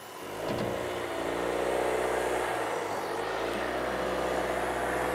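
Camper van engine revving and held at high revs, its drive wheels spinning in sand, a van stuck and not moving. The revving comes in about a third of a second in and then holds steady.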